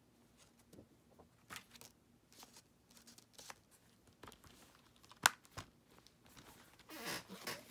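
Plastic Blu-ray case being handled: scattered light clicks and taps, a sharp snap about five seconds in, then a short rustling, scraping slide near the end.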